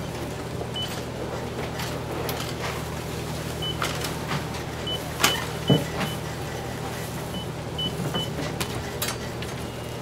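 Grocery store ambience: a steady low hum with short high beeps of checkout barcode scanners every second or so, and the clatter of goods being handled. The loudest knocks come about five and a half seconds in.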